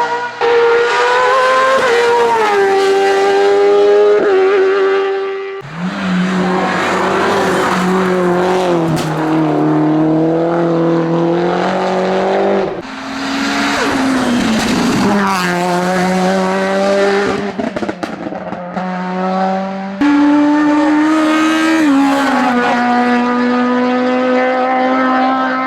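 Hillclimb race cars at full throttle, engines revving high with the pitch rising and falling through gear changes. Four different cars are heard in turn, the sound switching abruptly from one to the next about every six to seven seconds.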